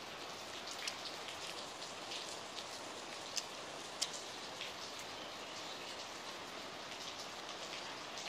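Heavy rain, a steady downpour, with scattered sharp ticks over the constant hiss.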